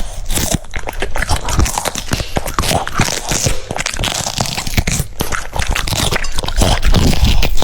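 French Bulldog biting and chewing crunchy food up close: rapid, wet crunches several times a second, getting a little louder near the end.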